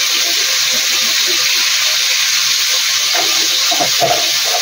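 Blended chili spice paste frying in a wok over a gas flame, a steady, even sizzle.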